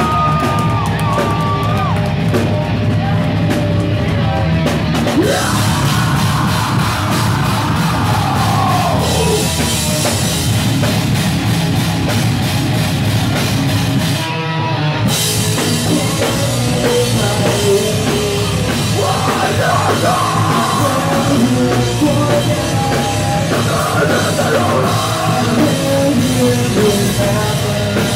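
Live heavy metal band playing loud, with electric guitars, drums and vocals. About halfway through the music stops briefly and the band crashes back in.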